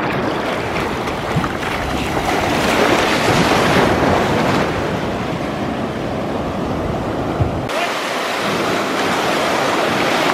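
Breaking waves and whitewater rushing close to the microphone, with wind buffeting it. About eight seconds in the sound changes abruptly: the low rumble drops away and a brighter hiss of surf takes over.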